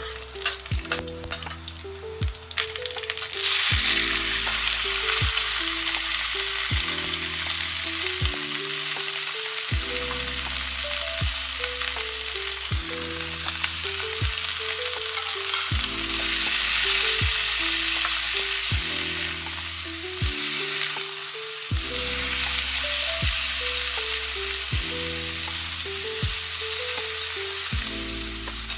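Food stir-frying in a hot wok: a run of quick crackles and clicks, then a loud, steady sizzle that starts sharply about three seconds in.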